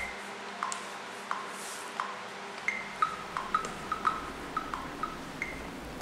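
Short electronic blips at two pitches, tapped out one by one in an irregular rhythm on a drum-pad controller, over a steady hiss.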